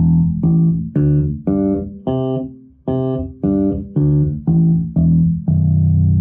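Six-string Fodera electric bass played through a Hartke head and an Ampeg 8x10 cabinet, in active mode with non-boosted EQ on the humbucker setting and light compression. About a dozen plucked notes come at roughly two a second, moving up and down in pitch, and end on a held note that rings out near the end.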